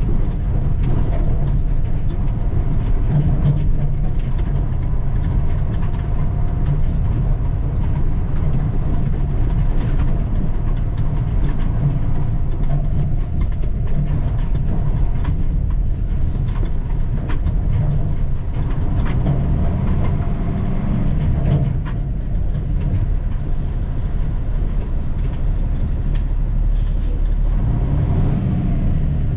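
Cummins diesel engine of a 2010 International 7600 truck running steadily under way, with frequent short clicks and rattles over its low rumble.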